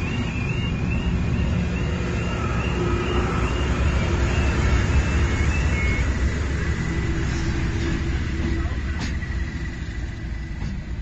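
Class 97/3 diesel locomotive, a converted Class 37 with an English Electric V12 engine, passing close by at low speed. Its engine and wheels rumble, loudest about halfway through. A level-crossing alarm's fast, repeating warbling tone sounds over it until about six seconds in, followed by a steadier high tone.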